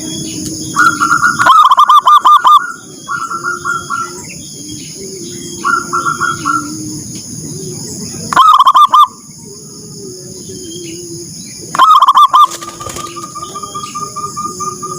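Zebra dove (perkutut) cooing in repeated fast, pulsing phrases, loudest three times, with fainter phrases between.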